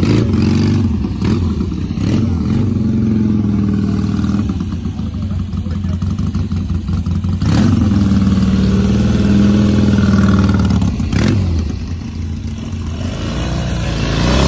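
Vintage motorcycle engines idling with an uneven low beat, with sharp throttle blips about halfway through and again about three-quarters of the way in. One is a Norton twin whose idle is set a little low.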